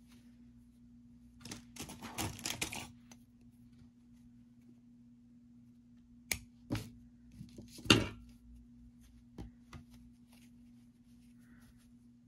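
Handling noise from hand yarn-craft work: a rustle about a second and a half in, then a few sharp clicks and knocks, the loudest about eight seconds in. A steady low hum runs underneath.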